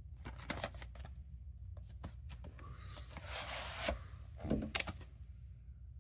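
Handling of a VHS tape: clicks and taps of the plastic cassette and its cardboard sleeve, a scraping rustle of about a second as the cassette slides out of the sleeve near the middle, then a knock as the cassette is turned in the hands.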